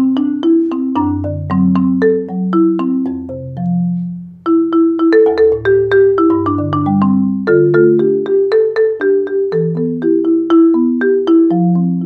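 Marimba One rosewood marimba played with four Marimba One Round Sound yarn mallets, soft RSB5, medium RSB3 pair and medium-hard RSB1. It is a flowing chordal passage of quick struck notes over ringing low bass notes, with a brief break about four and a half seconds in before the playing resumes.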